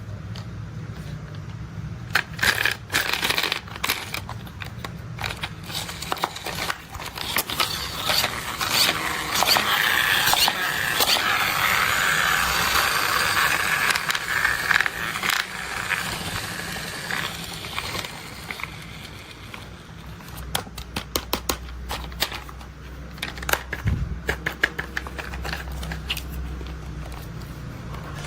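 Toy construction vehicles being handled and played with: scattered clicks and knocks, a longer scraping, rattling stretch in the middle, and a quick run of clicks near the end.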